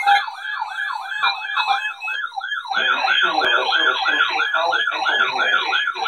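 Several weather alert radios sounding their warbling alarm sirens together at the start of a severe thunderstorm warning. It is a fast repeating sweep of about three warbles a second, and it grows fuller about three seconds in as more radios join.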